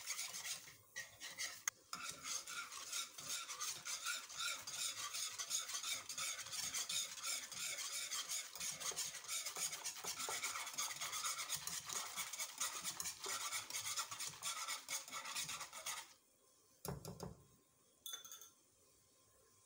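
Metal wire whisk beating dry milk powder into hot milk in a pan: a fast, steady swishing and scraping of rapid strokes that stops about four seconds before the end. Two brief knocks follow.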